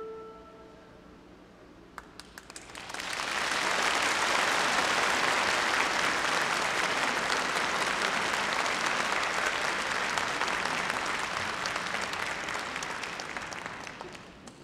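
The last held note of a bamboo flute fades out. After a short pause a few scattered claps grow quickly into full audience applause, which holds steady and then fades away near the end.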